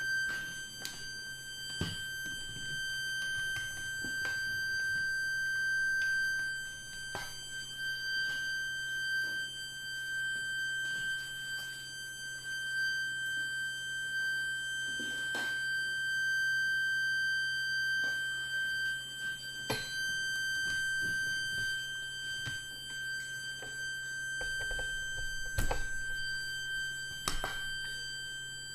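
Minimal live electronic noise music from mixers and effects units: a steady high sine tone held over a low electrical hum, with scattered sharp clicks and pops.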